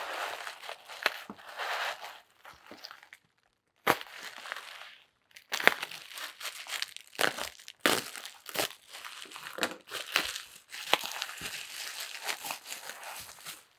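Plastic bubble wrap crinkling and rustling as it is pulled by hand off an exhaust muffler, in uneven spells with sharp crackles and a brief pause about three seconds in.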